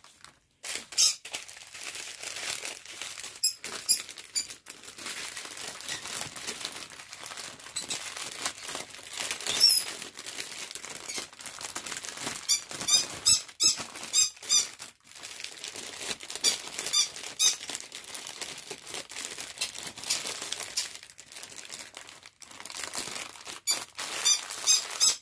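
Pet bird squeaking in several runs of short, high-pitched calls, over steady crinkling and rustling as a rolled diamond painting canvas is opened out.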